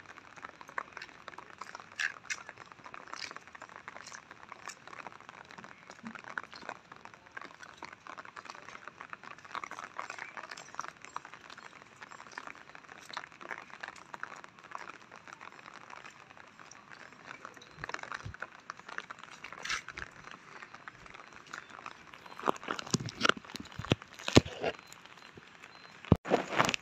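Footsteps on a wet, rain-soaked path, a run of soft crunching steps over a steady background hiss, with louder, heavier steps in the last few seconds.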